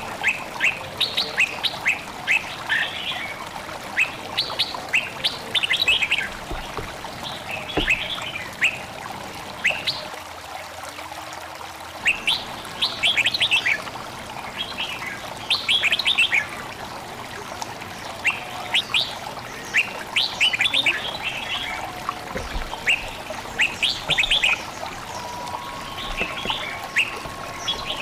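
Songbirds singing many short, falling chirps in quick succession over a steady babbling of flowing water.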